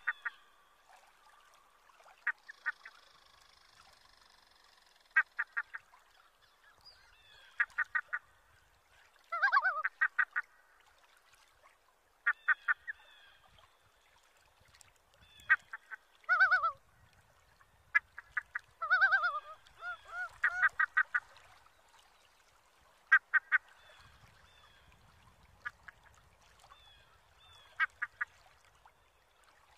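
Waterbirds calling in short, quick bursts of three to five rapid repeated notes, coming again and again every second or two, with a few longer honk-like calls among them.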